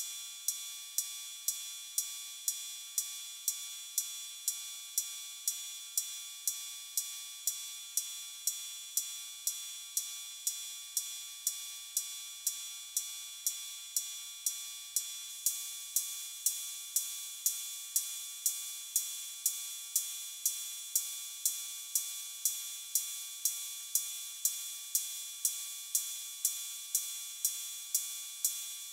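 Breadboarded BOSS DR-110 analog cymbal circuit triggered about twice a second. Each hit is a bright hiss of filtered white noise and square-wave metallic noise that dies away quickly. The steady tones of the square-wave oscillators ring on underneath between hits.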